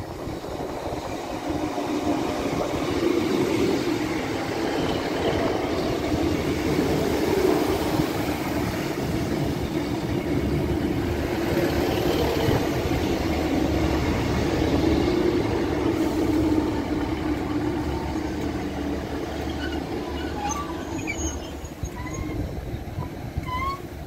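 GWR Class 150 Sprinter diesel multiple unit running into the platform: a steady rumble of its engines and wheels on the rails, with a few short brake squeals near the end as it slows to a stop.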